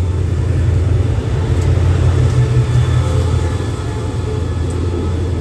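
SRT CSR-class diesel-electric locomotive rumbling past along the platform as the express train pulls in. Its engine drone is loud and steady, easing a little about halfway through.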